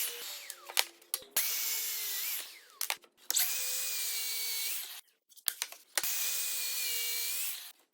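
A power tool motor, such as a drill, running in short bursts of one to two seconds with a steady whine, with sharp clicks and knocks between the bursts.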